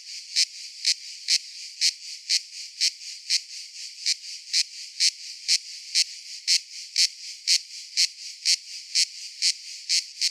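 Cicada calling: a steady high-pitched buzz with sharp, louder pulses about twice a second.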